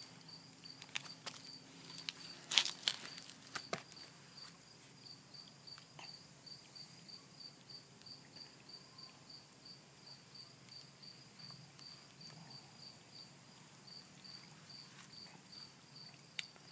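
Insect chirping outdoors, a steady train of short high-pitched pulses at about four a second, with a few sharp clicks in the first few seconds.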